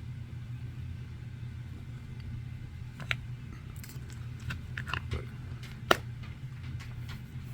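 A few sharp clicks and small rattles of a diecast model car and its plastic packaging being handled, the loudest about six seconds in, over a steady low hum.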